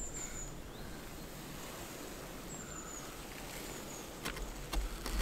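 Quiet frosty forest ambience with a few faint, short, high chirps of small birds, then several sharp knocks and a low thump near the end as hunting gear and a strap are handled on the wooden tower.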